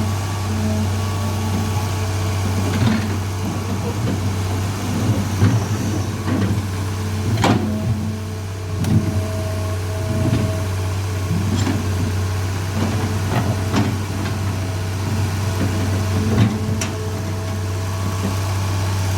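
Excavator engine idling with a steady low hum. Several sharp knocks are scattered through it, the strongest about halfway.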